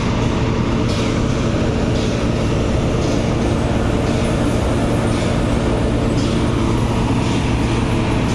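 Oil drilling rig machinery running steadily: a loud, even drone with a constant low hum.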